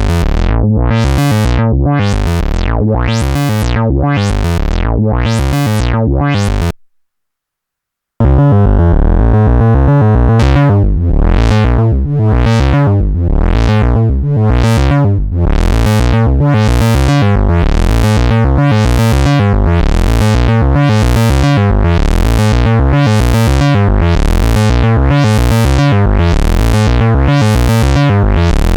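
Eurorack synthesizer patch: a Morphing Terrarium E350 oscillator run through a filter whose cutoff an LFO sweeps up and down about once a second, giving a repeating rising-and-falling wah over a low, buzzy tone. The sound cuts out for about a second and a half around seven seconds in, then comes back with the same steady sweeping.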